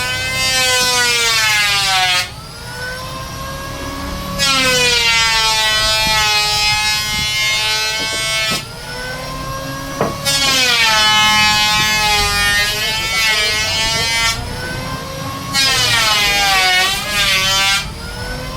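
High-speed electric woodworking power tool whining, its pitch sagging under load as it cuts wood and climbing back as the load eases, in several long passes with lighter running between.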